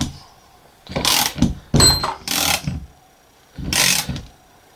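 Ratchet wrench turning the screw of a large C-clamp press, clicking in about four short bursts roughly a second apart, with a brief high squeak about two seconds in. The clamp is pressing a replacement U-joint bearing cap into the driveshaft yoke.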